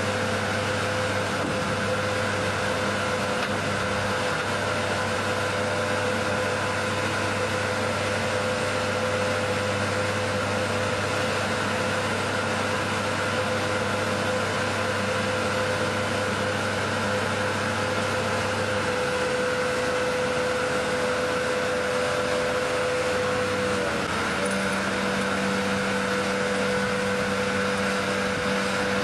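Sidelifter container trailer's hydraulic power unit running steadily with a held whine while its two crane arms lift a shipping container off the trailer and lower it to the ground. The pitch shifts slightly about two-thirds of the way through.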